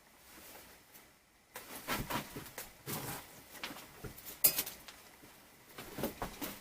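Irregular light knocks and clicks of handling in a workshop, with one sharp click about four and a half seconds in.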